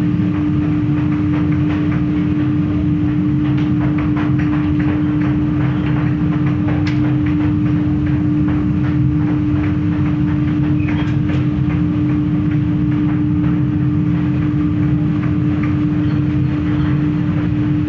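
Forge furnace and its electric motor running with a steady hum over a low rumble, with light clinks of steel bar pieces being handled.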